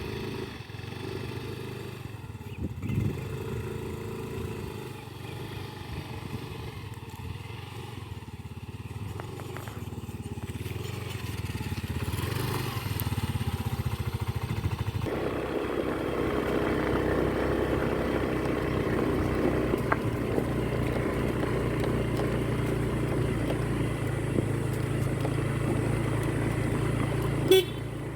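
Vehicle engine running steadily while riding, with road noise; it grows louder about halfway through. A short sharp knock near the end.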